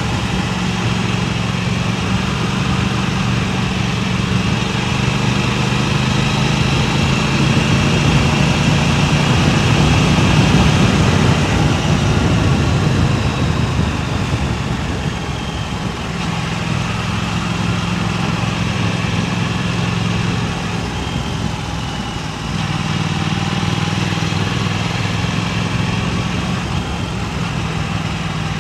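Motorcycle engine running steadily under way, with wind rushing across a clip-on microphone. The engine note shifts near the middle and dips briefly about three quarters of the way through, as with a change of throttle or gear.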